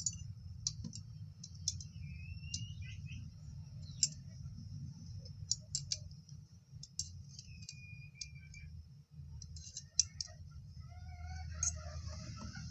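Spanners clicking against metal nuts while tightening them onto a turbine shaft: light, irregular metallic clicks, several a second at times with short pauses between, over a steady low hum.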